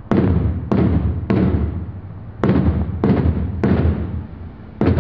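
Bass drum beating march time for marchers: three booming strokes about 0.6 s apart, a short pause, three more, and a fourth group starting near the end, each stroke ringing on as it fades.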